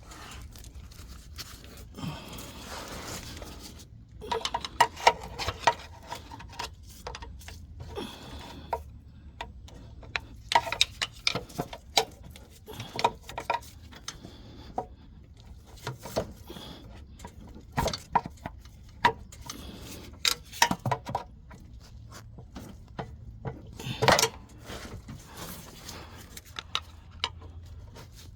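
Hand tools and bolts clinking and knocking against the engine's metal in irregular bursts while the timing cover bolts are worked loose, with a brief scraping stretch a few seconds in. The loudest knock comes near the end.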